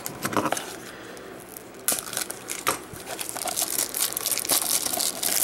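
Clear plastic shrink-wrap on a DVD case crinkling and tearing as it is peeled off by hand: scattered crackles at first, then denser and louder crinkling from about two seconds in.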